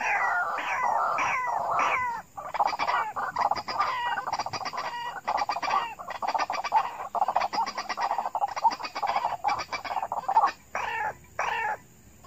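White-breasted waterhens calling: a string of falling calls about three a second, then a long fast run of short clucking notes, ending with two longer calls near the end.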